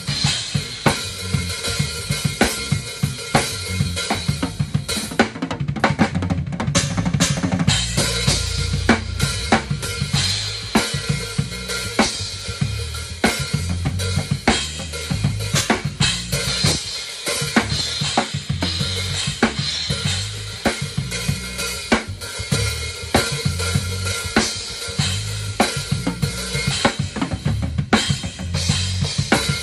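Drum kit played live in a steady groove, heard right at the kit: kick drum, snare and cymbals struck in dense, regular strokes.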